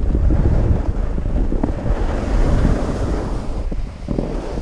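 Wind buffeting the microphone: a loud, steady low rumble with a short dip about four seconds in.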